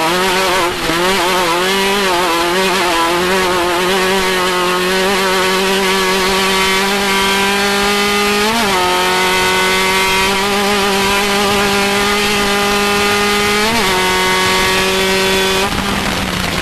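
Off-road race vehicle's engine running hard at a high, steady pitch, wavering a little at first, with two brief quick revs, one about halfway through and one near the end.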